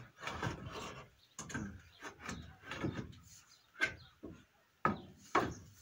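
Wooden parts of a timber goat stall being knocked and fitted into place, with irregular knocks and scrapes of wood on wood and a few sharp knocks in the second half.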